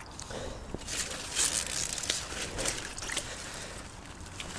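Pond water splashing and dripping as a tangled clump of water lily roots and mud is pulled up by hand, in irregular sloshes that are strongest between about one and three seconds in.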